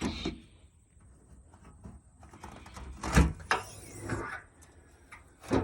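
Clunks and knocks of a metal camper toolbox being unlatched and opened by its handles, the loudest knock about three seconds in.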